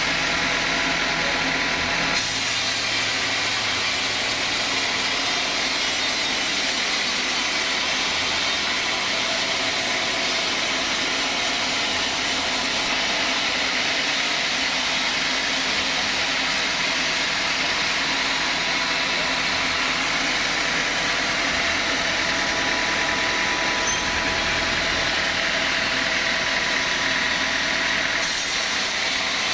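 Sawmill saw machinery running steadily with a continuous loud noise. The character of the noise shifts abruptly about two seconds in, again midway, and near the end.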